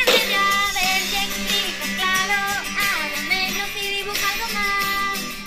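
A woman singing in Spanish over a backing track, holding and sliding between notes of the melody.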